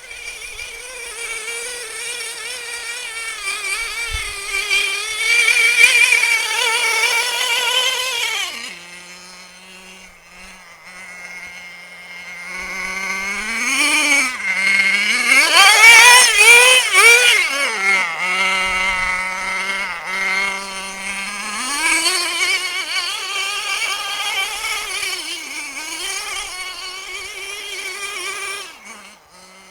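Small two-stroke engine of a pull-start RC car running at high revs, dropping to idle about nine seconds in, revving up and down again from about thirteen seconds, holding high, then falling back to idle near the end.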